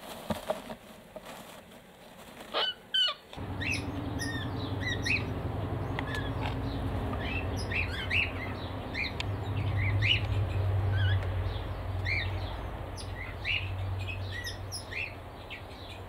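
Small aviary birds chirping: many short, high calls scattered throughout, over a low steady hum. For the first three seconds or so there are only faint rustles and a couple of knocks before the chirping starts.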